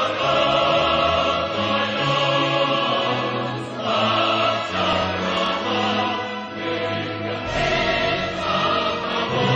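Choral music: a choir singing long held notes over a bass line that steps to a new note every second or so.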